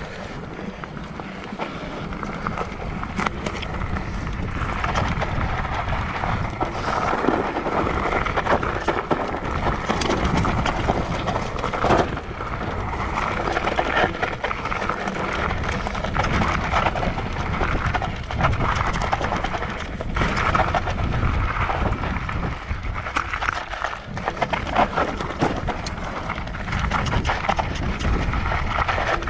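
Riding noise from a Voodoo Zobop-e electric mountain bike on a rough trail: a steady rumble of tyres and wind, with scattered rattles and knocks from the bike over bumps.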